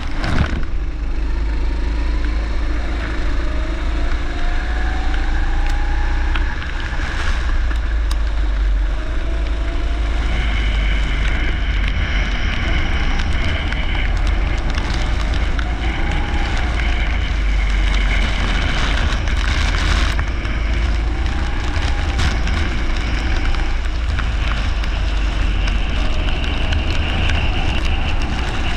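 Leisure go-kart engine running hard, its pitch rising and falling repeatedly as the throttle comes on and off, over a heavy low wind rumble on the microphone.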